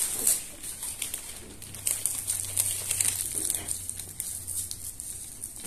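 Irregular rustling and scratching as fingertips rub over a silicone breast-examination model mounted on a printed board.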